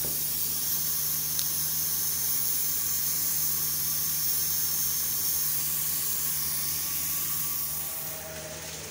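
Pot of rice water at a rolling boil, par-boiling basmati rice with whole spices, giving a steady hiss that drops away near the end.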